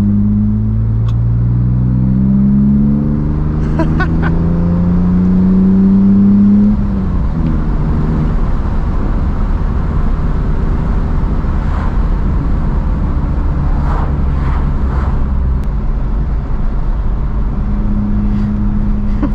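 BMW inline-six engine accelerating, its pitch rising twice with a gear change between. About seven seconds in the throttle is lifted, and the engine settles into steady cruising.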